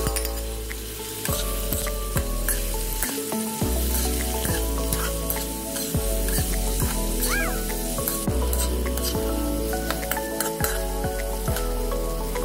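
Halved tomatoes, onions and green chilies sizzling in hot oil in a wok, with a metal spatula clicking and scraping against the pan as it stirs. Background music plays underneath.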